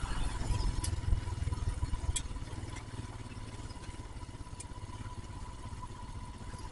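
Motorcycle running on the move, heard from the rider's mounted camera: a steady low engine and wind rumble, with three faint clicks or rattles.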